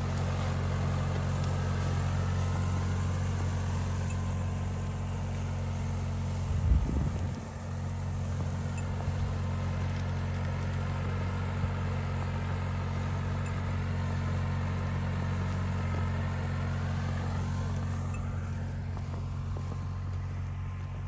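John Deere 6110R tractor's diesel engine running steadily, a low even drone, with one brief thump about seven seconds in.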